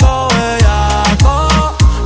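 Reggaeton music: a booming kick drum that drops in pitch, about every 0.6 s, over a deep steady bass, with a pitched melodic line gliding between notes.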